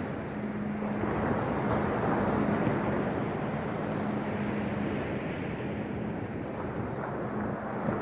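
Small waves breaking and washing up a shelly beach, with wind on the microphone. A faint steady low hum runs underneath, breaking off now and then.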